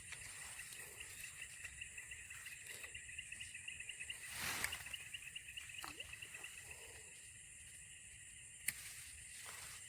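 Insects trilling steadily in a high chorus, pulsing quickly through the middle. A brief rustle comes about four and a half seconds in, and a sharp click near the end.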